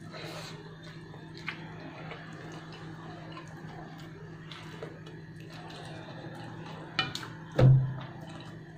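Eating by hand from a stainless steel plate: soft chewing and mouth sounds with small clicks of fingers and rice on the metal plate, over a steady low hum. Near the end come two short louder sounds, the second a brief low one.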